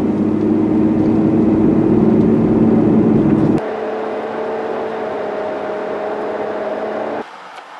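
Car engine and road noise heard from inside the cabin while driving: a steady engine drone that rises slightly in pitch as the car speeds up. The drone drops suddenly to a quieter, steady hum about three and a half seconds in, and drops again near the end.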